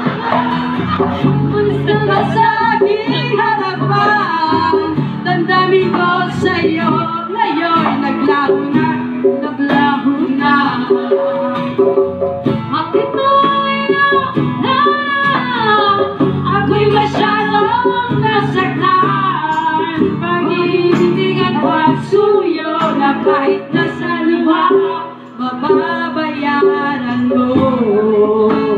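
Live acoustic band: two women singing a song into microphones, with acoustic guitar and a hand drum accompanying, played through PA speakers.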